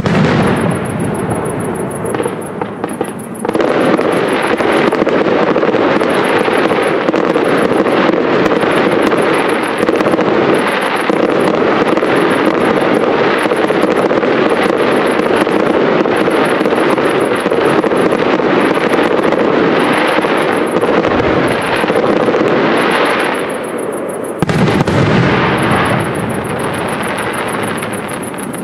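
Fireworks display: aerial shells bursting, with a heavy boom at the start and another about twenty-four seconds in, between them a long stretch of dense crackling and rapid pops.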